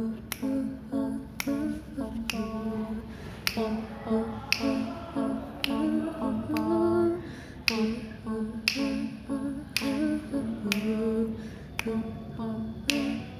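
Finger snaps about once a second keeping a steady beat, under voices singing a wordless a cappella melody.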